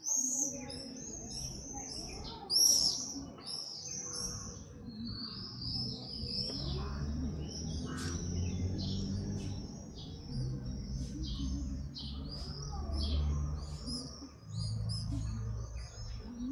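Small songbirds chirping and singing in quick, high calls throughout, with a low rumble underneath from about six seconds in.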